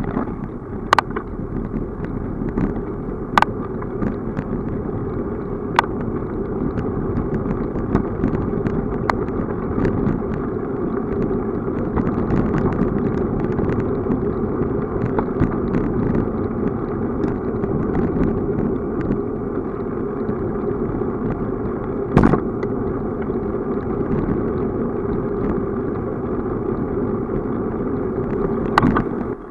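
Steady low rumble of a bicycle rolling along a rough, cracked asphalt lane, with a few sharp knocks as it goes.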